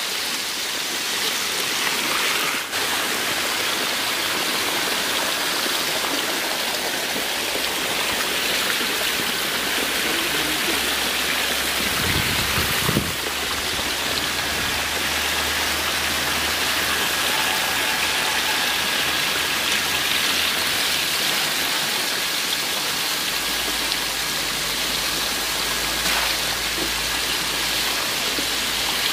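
Steady rushing and pattering of water: pipe outlets pouring into shallow tanks crowded with hybrid magur catfish fry, the fish splashing at the surface as they feed. One brief knock about halfway through.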